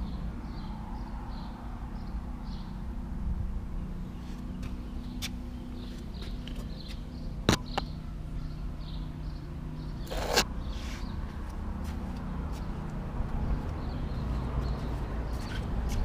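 Steady low mechanical hum made of several fixed low tones, with faint, repeated bird chirps; a sharp click about seven and a half seconds in and a brief scraping burst around ten seconds.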